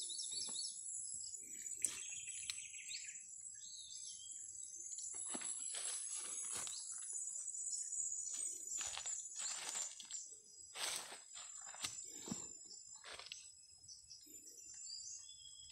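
Dry leaves and grass rustling in a run of short scrapes as they are brushed aside by hand, over a steady high insect trill, with a few bird chirps in the first seconds.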